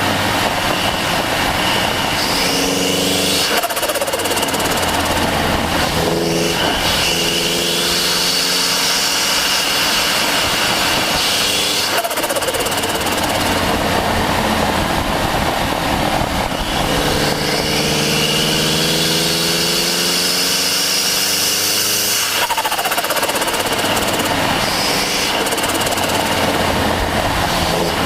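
Turbocharged Mazda MX-5 Miata engine accelerating hard, recorded right beside the turbo: the engine note climbs through several pulls while the turbo spools with a rising whine. The sound breaks off sharply about four times as the throttle closes, where the turbo flutters or blows off.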